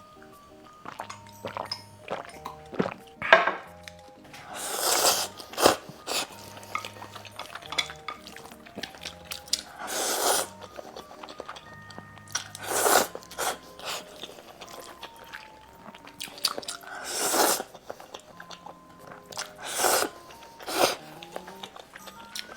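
Close-miked eating sounds: about five long slurps of noodles, each lasting around a second, between chewing and small clicks of utensils. Soft background music plays throughout.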